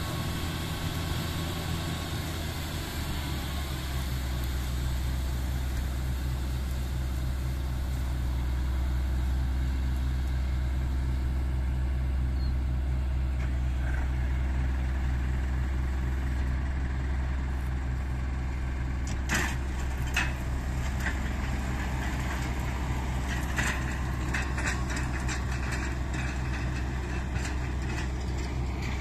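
New Holland TC5070 combine harvester running with its engine and machinery in a steady drone, the pitch stepping slightly lower about three seconds in. A few sharp clanks stand out around two-thirds of the way through.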